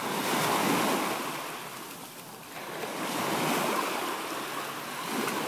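Small waves breaking and washing in shallow surf at the water's edge, swelling and ebbing, with a lull about two seconds in before the next wave comes in.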